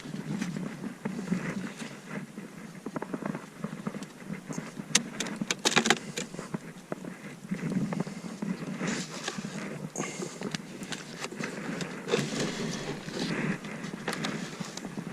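Wooden beehive boxes and frames being pried apart and handled: scattered knocks, clicks and scrapes of wood on wood.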